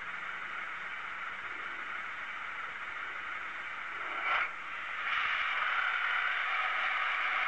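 Steady hiss of background noise, with a short whoosh about four seconds in, after which the hiss is louder.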